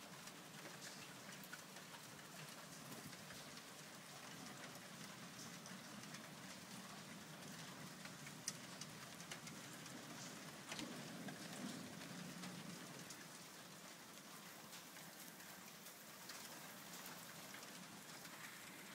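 Faint, steady rain falling on the roofs, with scattered drops ticking.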